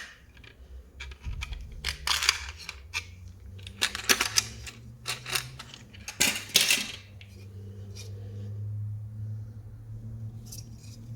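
Small plastic clicks, rattles and scrapes as the cover is prised off a new garage door push-button switch, busiest in the first seven seconds, then a low steady hum.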